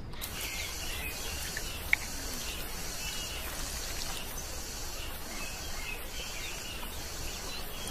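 Steady outdoor nature ambience with insects chirping, and a single sharp click about two seconds in.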